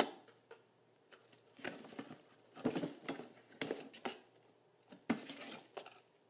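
A kitten's paws and claws scratching and tapping at a cardboard shoebox in irregular bursts, with a sharp tap at the start.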